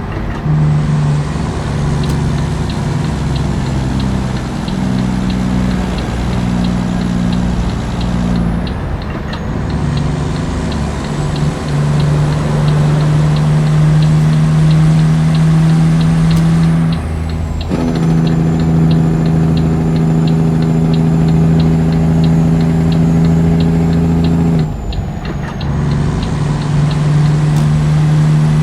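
Volvo FH truck's inline-six diesel running loud through a straight-pipe exhaust with no muffler. Its deep, steady note shifts abruptly a few times.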